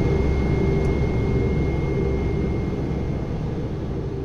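Cessna 208B's PT6A turboprop running at low power, heard inside the cockpit while taxiing: a steady rumble with a thin high turbine whine, slowly fading out near the end.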